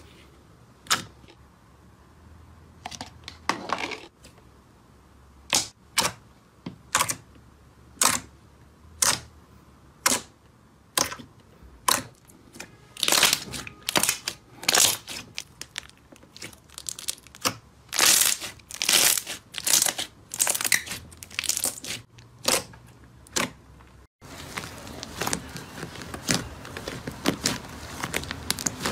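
Transparent green slime poked and pressed with fingers, giving sharp wet pops and clicks: about one a second at first, then coming quickly in clusters in the middle. After a sudden break near the end, thick blue slime is kneaded with a denser, steadier squishing.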